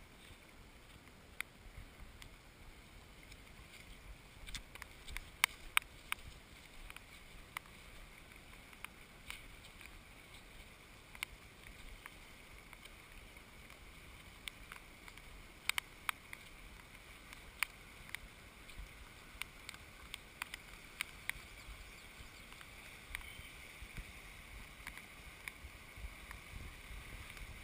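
Muddy creek in flood rushing past its banks, a faint steady hiss of fast water. A low wind rumble sits on the microphone, with scattered sharp ticks throughout.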